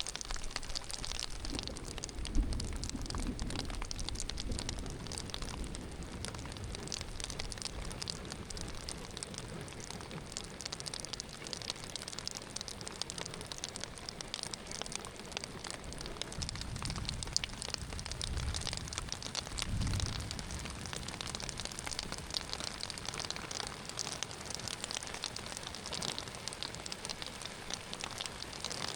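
Steady heavy rain pattering, a dense run of fine drop ticks, with a few soft low thumps, one about two and a half seconds in and two more in the second half.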